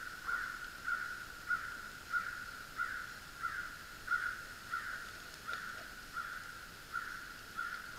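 Water at a rolling boil in an aluminium camp percolator pot on a small wood-burning stove, gurgling in a steady pulse about one and a half times a second.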